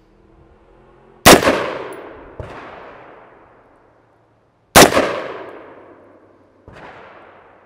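Two semi-automatic AR-15-style rifle shots about three and a half seconds apart, fired deliberately one at a time, each ringing out with a long decay. A fainter sharp knock follows a second or two after each shot.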